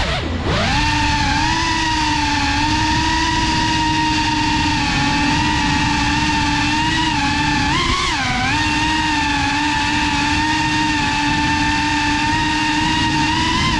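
GEPRC CineLog35 cinewhoop's brushless motors and ducted propellers whining steadily in flight. The pitch drops sharply and climbs back at the start, then rises and dips again about eight seconds in as the throttle changes.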